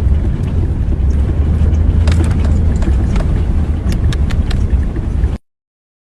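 Strong wind buffeting the microphone as a deep, steady rumble, with scattered sharp crackles. The sound cuts off suddenly near the end.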